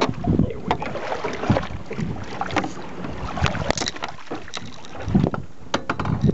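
Water splashing beside a small boat's hull as a hooked red drum is brought alongside, with wind buffeting the microphone and scattered knocks and clatter of handling.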